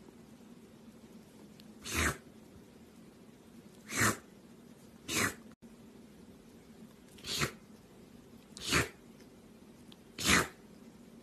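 Kitten sneezing six times in a row, short sharp sneezes one to two seconds apart.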